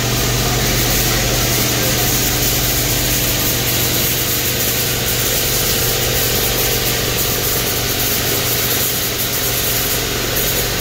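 Blueberry packing-line machinery running: roller conveyors and the filling machine make a steady mechanical drone with a constant low hum.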